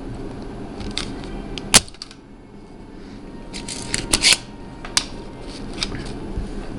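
Sharp plastic clicks and snaps from a spring-loaded desoldering pump and the tools being handled during desoldering: one loud snap about two seconds in, then a quick cluster of clicks around four seconds in and a few single clicks after.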